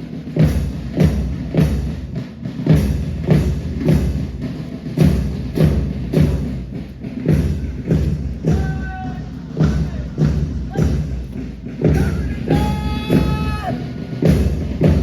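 Parade march drum beating a steady marching rhythm, about two beats a second. A held higher note sounds twice over it, briefly at first and longer the second time.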